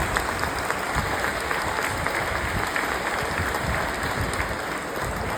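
An audience in a hall applauding steadily, many hands clapping at once.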